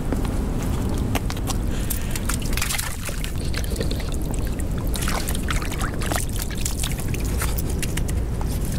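Harbour water sloshing and trickling, with many small splashes over a steady low rumble.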